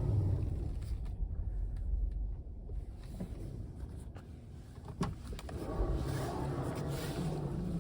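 Loud steering noise from a 2016 Tesla Model S 75D's electric power steering as the wheel is turned at parking speed: a low, rough whirring in two spells, strongest at the start and again from about two thirds through, with a few light clicks in between. It is a fault the owner hears during slow manoeuvres, with the steering feeling lumpy and jerking.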